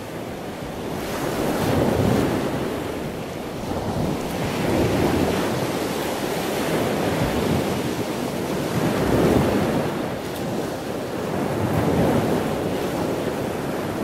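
Ocean waves washing in, swelling and fading every few seconds.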